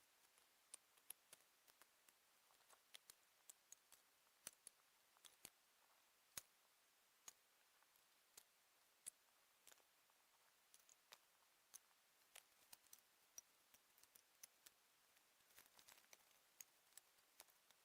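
Faint, irregular sharp clicks and ticks, a few a second, over near silence.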